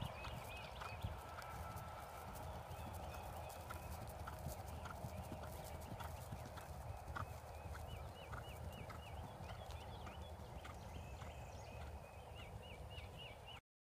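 Hoofbeats of a horse cantering on grass turf, soft irregular thuds at a distance.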